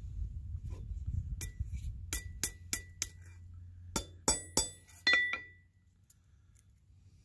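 Copper cloak pin clinking as it is handled and fastened through a wool blanket: about nine light metallic clinks, each with a brief ring, in two groups, one a second or two in and a louder one around four to five seconds in.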